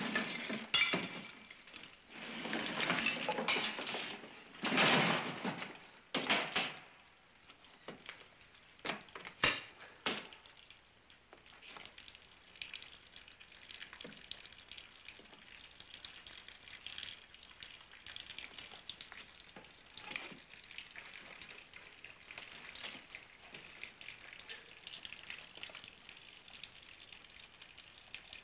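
Earthquake collapse sound effect: several bursts of crashing, rumbling debris in the first seven seconds, with a sharp crack about nine seconds in. Then a faint, steady crackling hiss.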